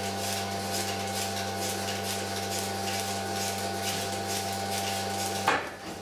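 Milking parlour machinery running: a steady hum from the milking machine's vacuum system with faint, regular ticking from the pulsators. A single sharp knock about five and a half seconds in.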